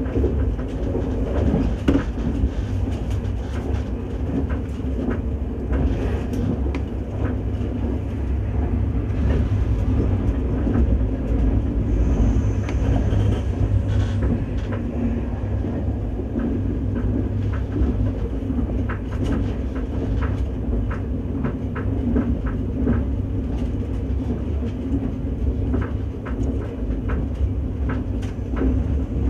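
KTX high-speed train running at speed, heard from inside the passenger car: a steady low rumble with scattered light clicks.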